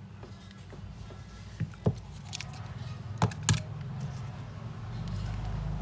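Four sharp light clicks, two close pairs a little over a second apart, over a low steady hum.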